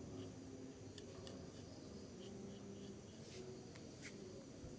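Barber's scissors snipping hair: a string of short, sharp, irregularly spaced snips, faint over a quiet steady background.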